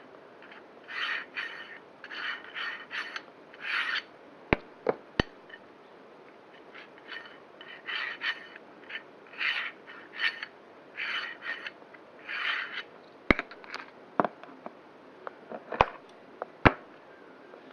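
A worn, rough bearing being turned by hand in short strokes, each giving a dry grinding rasp, with a few sharp clicks in the second half: the gritty sound of bad bearings.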